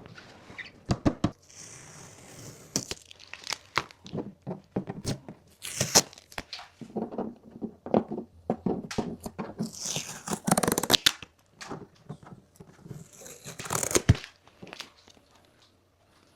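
Packaging being unpacked: plastic wrap and tape tearing in three longer rips, with crinkling and many scattered knocks and clicks as cardboard and parts are handled.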